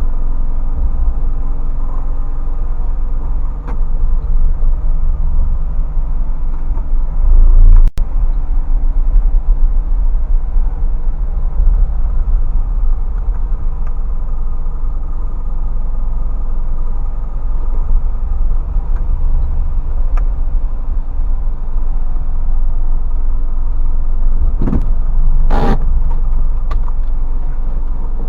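Isuzu box truck engine running with low road rumble as the truck drives along, swelling briefly about a third of the way through. There is a sharp knock near the end.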